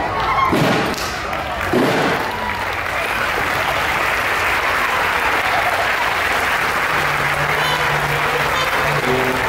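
Audience applauding steadily, with a few shouts near the start. Music comes back in faintly near the end.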